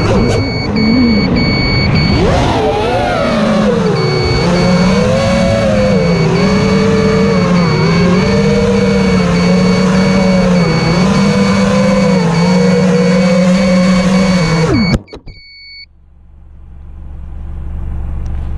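FPV quadcopter's motors and propellers buzzing, the pitch wavering slightly as the throttle changes, with a thin high whine over it. The buzz cuts off abruptly about fifteen seconds in as the quad is put down, leaving a low rumble that slowly grows.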